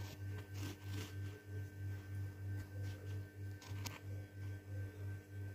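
A low hum that swells and fades about three times a second, with a couple of faint clicks.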